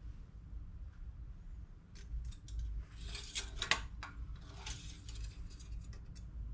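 Engine oil dipstick being pushed down its metal tube and drawn back out, with light metallic clicks and scraping, and a cloth rag rubbed over it to wipe it. The clicks start about two seconds in and are thickest about halfway through.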